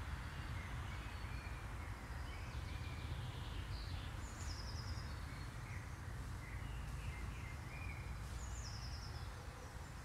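Woodland songbirds calling: scattered short chirps and two brief rapid trills, about four and a half seconds in and again near the end, over a steady low rumble.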